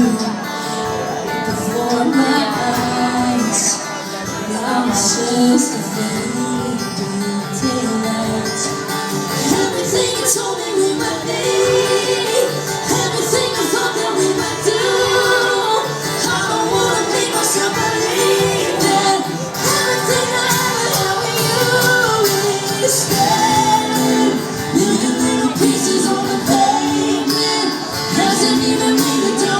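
Live performance of a female singer singing a country song with guitar accompaniment; her voice carries the melody throughout.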